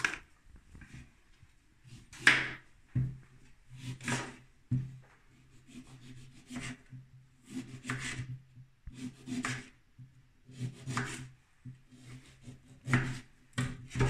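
A knife slicing through a lemon on a cutting board, each cut ending in a knock or scrape on the board, about one cut every second or two at an uneven pace.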